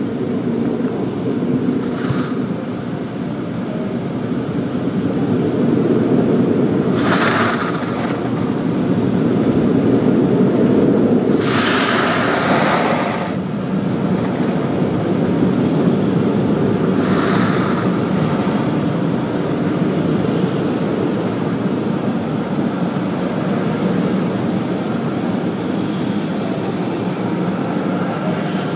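Automatic car wash equipment heard from inside the car's closed cabin: a steady rumble of machinery and water on the body. Hissing sprays sweep across the car four times, the longest about twelve seconds in.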